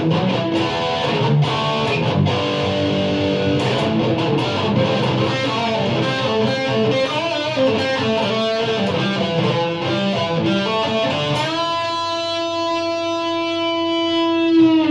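Electric guitar played through a Boss ME-25 multi-effects unit on its SpeedLead patch: a busy run of quick notes, then a single note bent up about three-quarters of the way in and held to the end.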